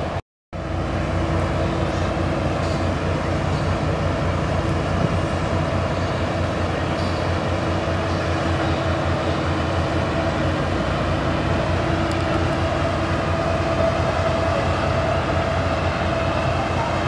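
A tugboat's diesel engine running steadily: a low drone with a few held tones over a rumble. The sound cuts out for about half a second just after the start, then returns unchanged.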